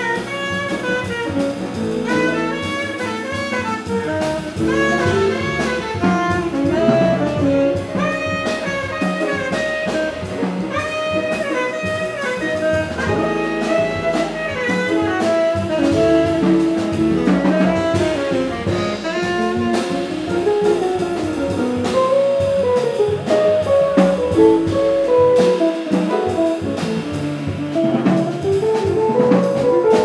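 Small jazz band playing: a tenor saxophone carries a flowing melodic line over jazz guitar, piano, upright bass and a drum kit keeping time on the cymbals.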